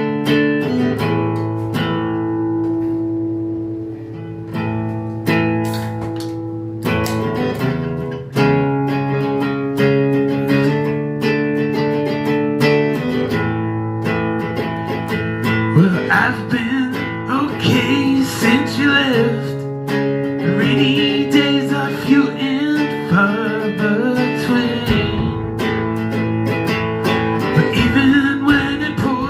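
Band playing an instrumental intro: ringing guitar chords with drum and cymbal hits, and from about halfway through a bending melodic line over the chords.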